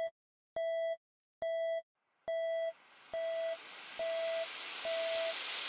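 An electronic beep, one pitched note under half a second long, repeating evenly a little faster than once a second. From about halfway through, a static-like hiss rises underneath and grows louder.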